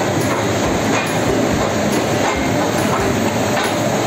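Nilgiri Mountain Railway X-class steam locomotive close by, giving a loud, steady hiss and rumble with a faint low beat.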